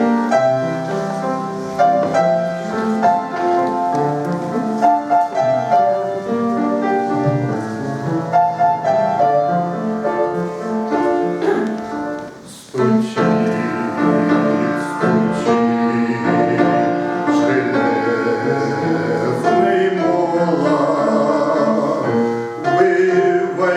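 Hymn music: a piano or keyboard introduction with steady chords and melody, broken by a short dip just past the middle, after which a melody with vibrato comes in over the accompaniment.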